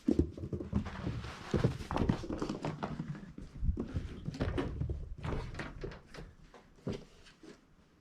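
Two kittens scrambling and batting at a fabric roller blind: irregular thumps, knocks and rustling of the blind as they pounce. The activity is busiest for the first six seconds, with one sharper knock near the end.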